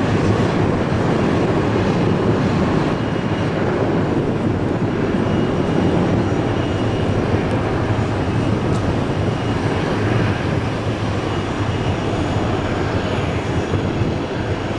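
Boeing 737-300's CFM56-3 turbofan engines running at low thrust as the airliner taxis: a steady, broad rumbling roar with a faint high whine. The sound eases slightly as the jet turns away.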